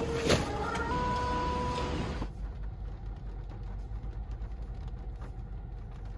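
Supermarket checkout noise with a held electronic tone for about a second. A little over two seconds in, it gives way to the steady low rumble of a car's interior with the engine running.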